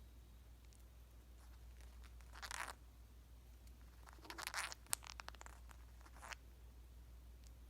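Indian ringneck parrot grinding its beak: short bursts of dry scraping and rasping mixed with small clicks, loudest about two and a half and four and a half seconds in.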